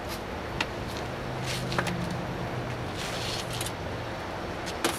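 A few sharp clicks and knocks from handling a collapsible plastic bucket and a slide-out van kitchen unit, with a brief rustle in the middle, over a steady low hum.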